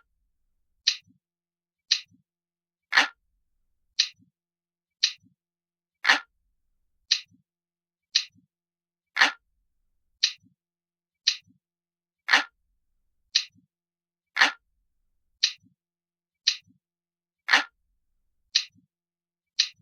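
Clock ticking at about one sharp tick a second, some ticks louder than the rest, each followed by a faint low knock.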